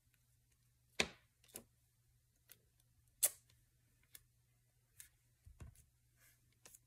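Scattered light clicks and taps of craft supplies being handled and set down on a work table, about eight in all. The sharpest come about a second in and just after three seconds, with a duller knock near the end.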